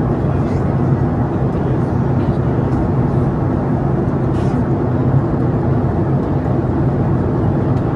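Steady cabin noise inside a Boeing 737 MAX 8 airliner: an even rush of air with a low, unchanging hum.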